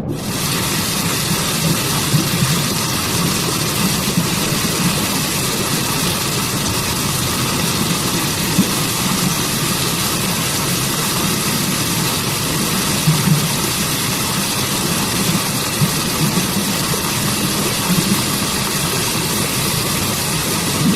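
Waterfall and stream water rushing steadily, a dense even roar with small irregular surges.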